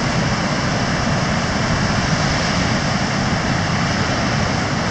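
Steady roar of ocean surf breaking on the beach, with wind buffeting the microphone as a rumble underneath.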